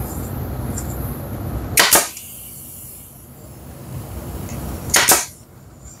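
Pneumatic nail gun firing twice into softwood, two sharp shots about three seconds apart.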